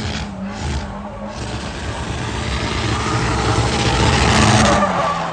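Nissan 240SX drift car's engine held high as it slides sideways around the tire barrels, with loud tire noise. Both grow louder to a peak about four and a half seconds in, then the revs drop.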